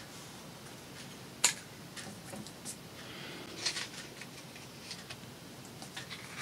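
Small clicks and ticks of paper and craft tools being handled, with one sharp click about a second and a half in and a few lighter ticks after it.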